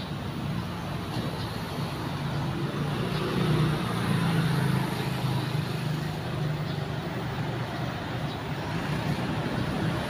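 Street traffic: a motor vehicle's engine running past with a low hum, loudest about four to five seconds in.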